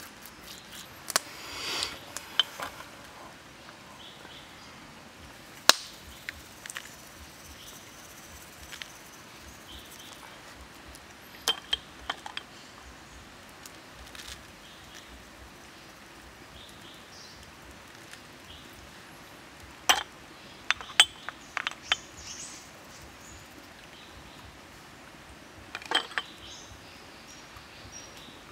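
Plastic spoon clinking and tapping against small ceramic bowls while spices are spooned out: scattered sharp clicks in small groups, the loudest single click about six seconds in, over a faint steady background hiss.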